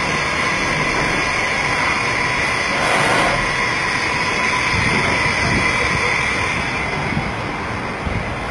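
The BT-40 spindle of a 1991 Mitsui Seiki VT-3A CNC vertical machining center spinning at high speed, a steady high whine with a fainter lower tone beneath it.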